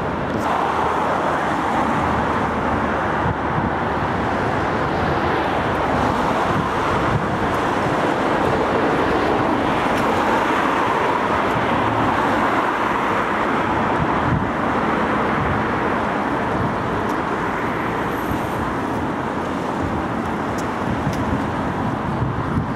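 Steady road traffic noise from cars passing on the road alongside.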